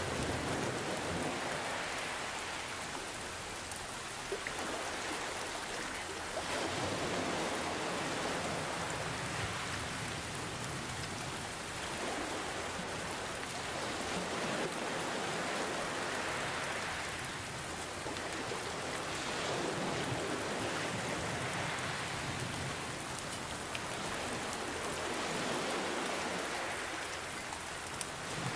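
Steady rain with ocean waves, the wash swelling and easing every few seconds.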